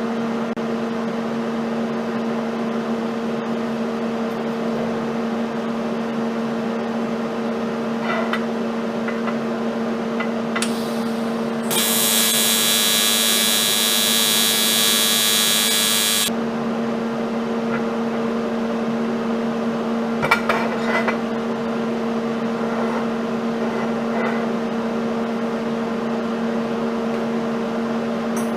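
A steady electrical hum runs underneath throughout. About twelve seconds in, an AC TIG welding arc on the aluminium Rotax 125cc cylinder buzzes loudly for about four and a half seconds, then cuts off. A few faint clicks follow.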